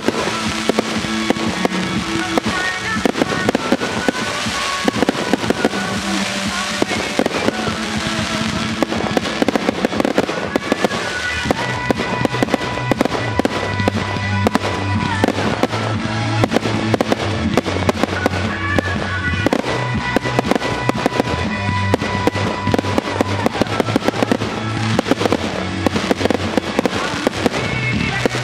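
Aerial fireworks shells bursting and crackling in quick succession, over a music track; a deep bass line comes into the music about twelve seconds in.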